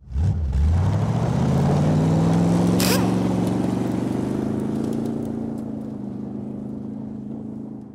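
Ford Mustang accelerating hard away on loose gravel, its tyres spraying stones. The engine note climbs over the first two seconds, then holds steady and slowly fades as the car pulls away. A single sharp crack sounds about three seconds in.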